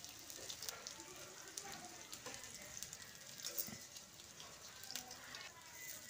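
Spinach and gram-flour pakoras sizzling in hot refined oil in a steel kadhai, a steady hiss with many small crackles. A spoon turns the pakoras in the pan, adding a few light clicks.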